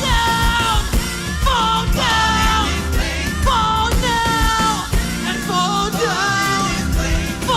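Live worship band with a lead vocalist singing sustained, gliding phrases over drums and a full band.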